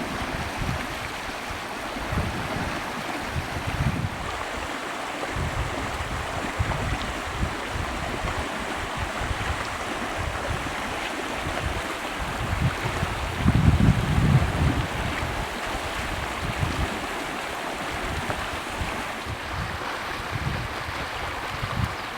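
Steady rush of flowing water, with uneven low buffeting from wind on the microphone, strongest about halfway through.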